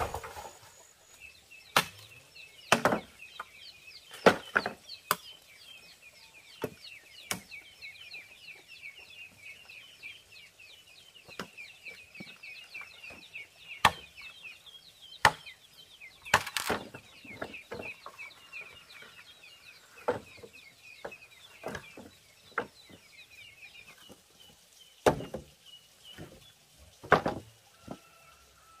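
High, rapid bird chirping that keeps up until near the end, with irregular sharp knocks scattered throughout, some single and some in quick pairs.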